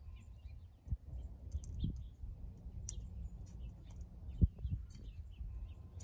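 Wild songbirds giving scattered short, high chirps over a low outdoor rumble, with one sharp thump about four and a half seconds in.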